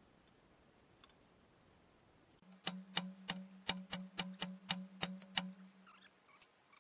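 Hammer striking a long steel drift held against the excavator's boom-cylinder pin, about eleven sharp blows at three to four a second, with the metal ringing under them. The blows start about two and a half seconds in and stop shortly before the end.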